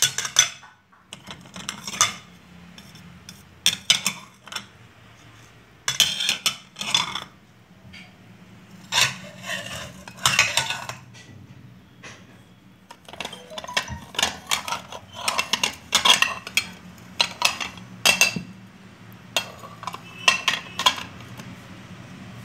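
Stacked crockery plates clinking against each other as they are lifted and set back down, in about a dozen short bursts of sharp, ringing chinks.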